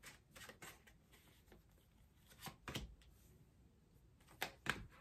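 Tarot cards being handled: a few soft snaps and taps as cards are drawn from the deck and laid on the tabletop, the loudest nearly three seconds in and near the end.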